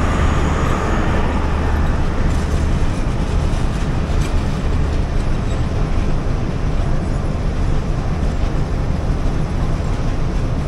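Pakistan Railways passenger coaches rolling past close by: a steady rumble and clatter of wheels on the track, with a low steady hum from the passing power van's generators in the first few seconds.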